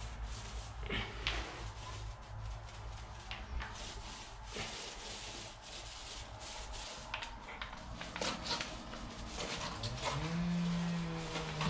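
Paint roller rubbing and rasping across a concrete floor, spreading epoxy primer, with small ticks and scrapes. Near the end comes a long, low vocal groan from a man.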